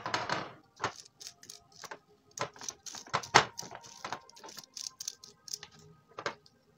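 Gloved hands wiping aluminium-foil jar lids with alcohol-dampened cotton wool, making irregular rustles and crinkles of foil with sharp clicks and knocks as glass jars are handled on a glass tabletop. The loudest knock comes about halfway through.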